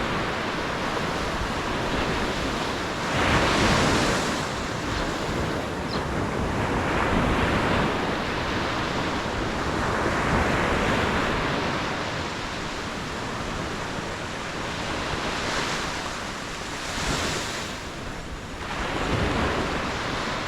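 Ocean waves breaking over a steady rush of surf, surging louder every few seconds.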